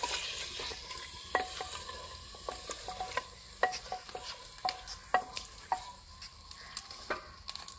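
Wooden spoon stirring potatoes frying in masala in a clay handi, knocking against the earthen pot every half second to second over a faint sizzle.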